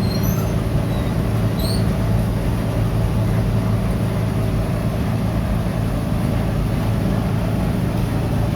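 Steady, unbroken hum of workshop machinery running, with a strong low drone.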